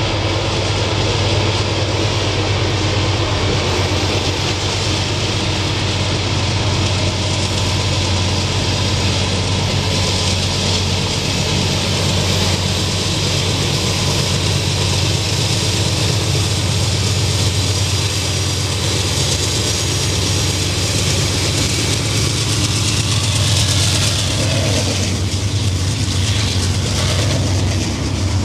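Two GE diesel locomotives heading a long freight train, engines running with a loud, steady low drone as they approach and pass close by. Near the end the freight cars follow, their wheels clicking over the rail joints.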